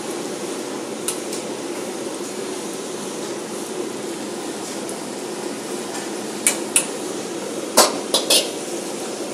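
Steady rushing noise of commercial kitchen gas burners and extraction, with sharp metallic clanks of a steel ladle and wok against stainless steel pots: one about a second in, then a quick run of several clanks near the end, the loudest of them.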